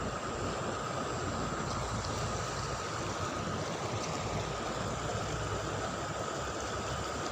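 Steady rush of flowing river water, with a faint steady high tone underneath.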